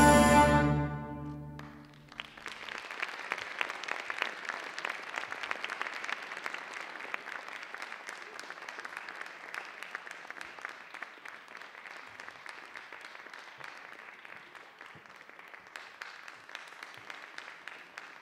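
Music ends on a held chord that fades out in the first two seconds, then an audience breaks into applause, many hands clapping steadily and slowly dying down.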